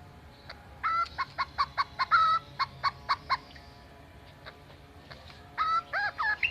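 A cucak ijo (green leafbird) mimicking a chicken's clucking: a quick run of short clucks for about two and a half seconds, a pause, then a few more clucks near the end.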